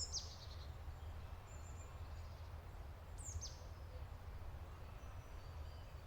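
Birds calling over a steady low rumble: a quick high call sliding downward at the start, a thin high whistle about a second and a half in, and another downward-sliding call a little past three seconds in.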